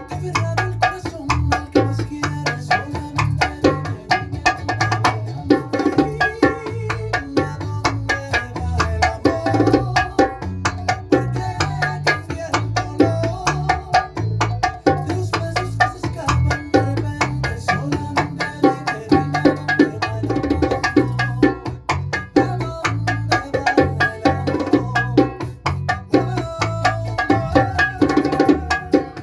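Bongos played in a bachata rhythm, the martillo pattern with its derecho and majao variations, as a dense run of quick hand strokes over music with a steady bass line.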